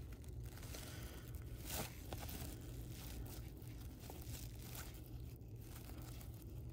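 Stack of 1992 Upper Deck football trading cards being flipped through by hand, the cards sliding and flicking against each other in faint, irregular rustles, one a little louder about two seconds in.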